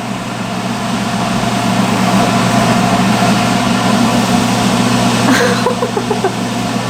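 Salon hood hair dryer running: a steady blowing hiss over a constant low hum, growing a little louder over the first couple of seconds.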